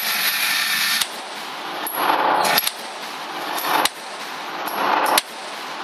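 Four shots from a Glock 17 9mm pistol, spaced about a second and a half apart, with the sound dropping off sharply just after each shot.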